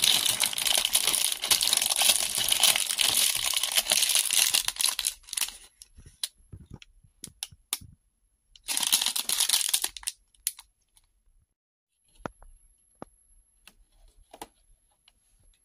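Crinkling and tearing of packaging, a LEGO advent calendar's cardboard door and its clear plastic parts bag, for about five seconds, with a second burst of crinkling around nine seconds in. In between and afterwards come scattered light clicks of small plastic LEGO pieces.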